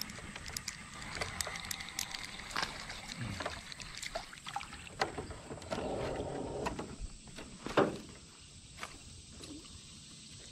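Scattered clicks and knocks of gear against a small aluminium boat, with a short wash of water against the hull about six seconds in. The loudest knock comes near eight seconds.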